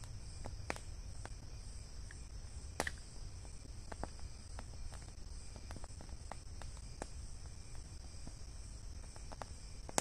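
Steady night chorus of crickets, a high continuous trilling, over a low rumble, with scattered light clicks and one sharper click about three seconds in.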